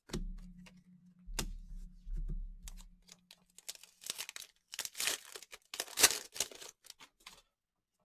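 Trading card pack wrapper being torn open and crinkled in quick crackly bursts from about four seconds in, loudest near six seconds. Before that come a low hum and a few soft clicks as cards are handled.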